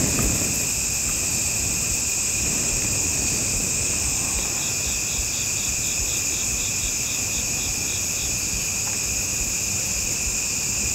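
Steady evening chorus of insects in two high, unbroken shrill bands, with a separate chirping series of about four notes a second from around four to eight seconds in.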